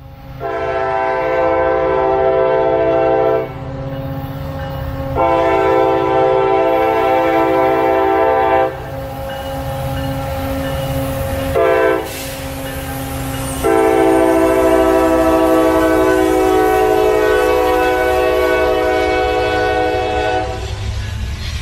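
Norfolk Southern diesel locomotive's multi-tone air horn sounding the grade-crossing signal: two long blasts, one short, then a final long one, over the low rumble of the locomotives passing.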